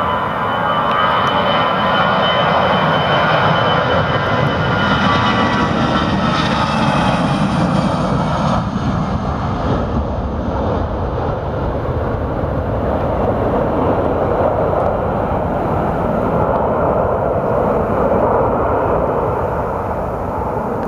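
Airbus A319's twin jet engines at takeoff power: a loud steady roar with a high fan whine during the takeoff roll, the whine falling in pitch about eight seconds in as the airliner passes, then a broad rumble as it lifts off and climbs away.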